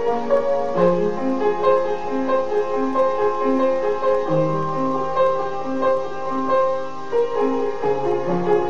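Background piano music: a slow line of repeated notes over held lower notes.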